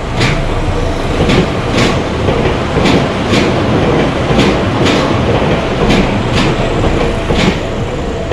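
Train passing close by, its wheels clacking over rail joints in even pairs of beats, a new pair about every second and a half, over a steady rumble.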